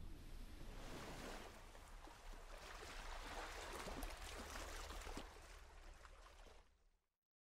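Faint, steady rush of water from a motor yacht's wake, with a low rumble underneath, fading out to silence near the end.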